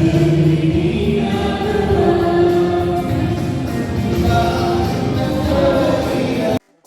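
Choral music, a choir singing held notes over a full accompaniment; it cuts off abruptly just before the end.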